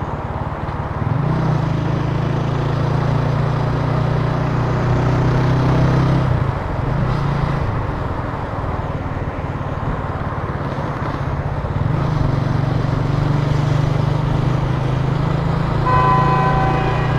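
Italika TC300 motorcycle engine running while riding, picking up revs about a second in, easing off around six seconds and pulling again around twelve seconds. Near the end a vehicle horn honks briefly over it.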